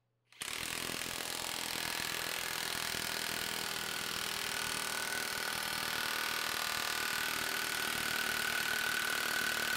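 Makita 40V XGT 3/4-inch cordless impact wrench hammering nonstop in reverse against a fastener held on a torque tester, a dense steady rattle of impacts that starts abruptly. A steady whine joins in during the second half.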